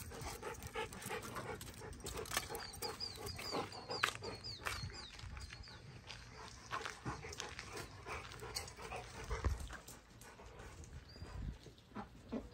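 A Rottweiler panting, a soft rhythmic huffing about three breaths a second, with small scuffs and clicks around it. A quick run of short high chirps comes in partway through.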